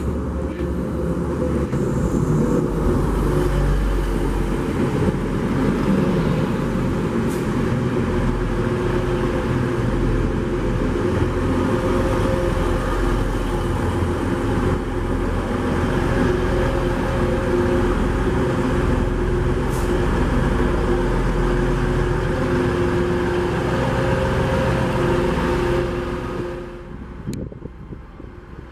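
TransPennine Express Class 185 diesel multiple unit running along the platform, its underfloor diesel engines giving a steady hum of several tones over the rumble of wheels on rail as the carriages go by. The sound cuts off sharply near the end.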